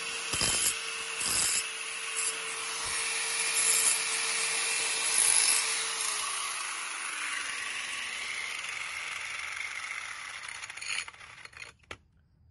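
Electric angle grinder running, its disc grinding the edge of a curved sheet-metal patch clamped in a bench vise in several short passes. About six seconds in the motor is switched off and winds down with a falling whine, and near the end there are a couple of knocks as the tool is set down.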